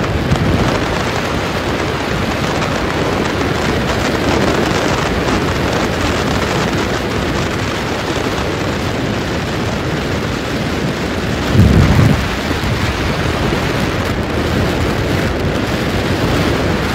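Thunderstorm: heavy rain as a steady, dense hiss, with a short low boom of thunder about twelve seconds in, the loudest moment.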